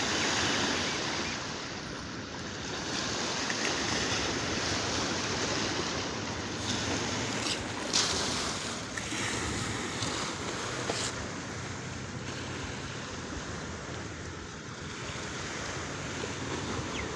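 Sea surf washing on a shore: a steady rushing that swells and eases slowly, with a short tap about eight seconds in.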